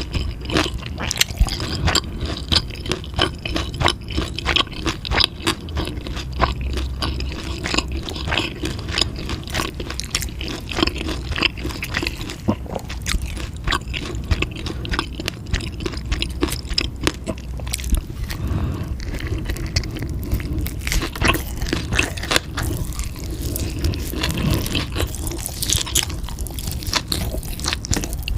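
A person chewing and biting food close to the microphone: rapid, dense clicks and crunches that go on throughout.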